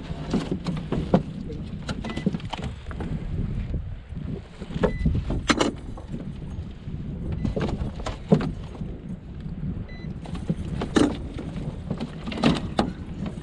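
Low wind rumble on a forehead-mounted GoPro's microphone, with scattered clicks and knocks from handling, several of them sharper, about a second in, five and a half seconds in, eight seconds in, and twice in the last few seconds.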